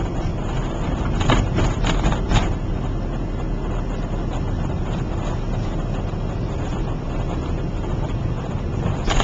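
Car driving along a road, heard from inside the cabin: steady engine and tyre noise with a light wind rumble. A few brief knocks come about one to two and a half seconds in.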